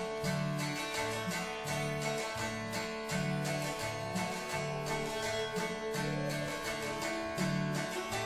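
Acoustic guitar played instrumentally in a country style, strumming in a steady rhythm with alternating bass notes.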